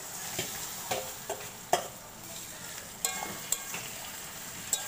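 Taro stolons tipped into hot oil and fried onions in a wok, sizzling steadily, with a spatula clacking and scraping against the wok several times as they are stirred.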